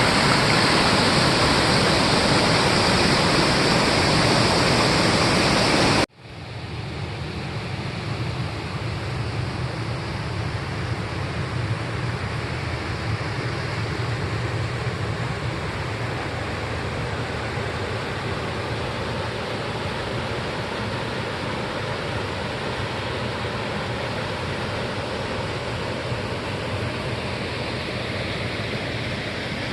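Waterfall rushing steadily, a dense even hiss of falling water. About six seconds in it cuts off abruptly and resumes quieter, with more low rumble and less hiss.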